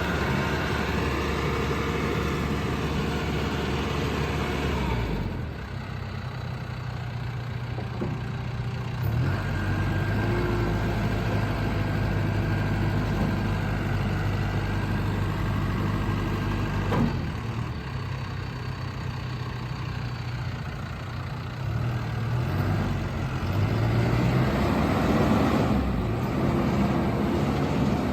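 John Deere 310K backhoe loader's diesel engine running, its speed and load dropping and rising several times.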